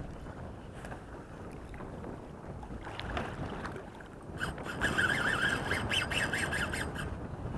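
Wind and water lapping around a kayak, then, a little past halfway, a fishing reel whirs for nearly three seconds with a wavering whine and fast clicking while a whitemouth croaker is being fought on the line.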